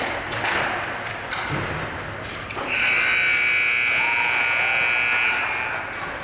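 A single steady, high-pitched signal blast, from a rink buzzer or a referee's whistle, starting a little before halfway and lasting about three seconds. Before it, the rink noise of skates and sticks on ice is heard.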